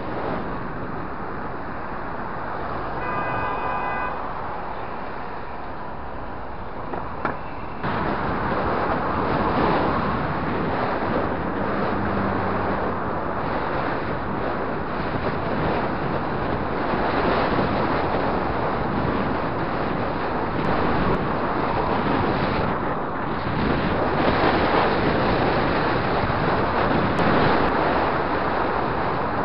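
Wind rushing over the bike-mounted camera's microphone while riding a road bike through city traffic, with the noise of passing cars, growing louder about eight seconds in. A short horn-like tone sounds about three seconds in.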